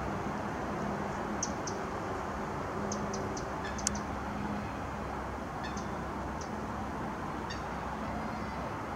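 Outdoor background: a steady rumble with a faint low hum, and brief high chirps a few times through it, with one sharp tick near the middle.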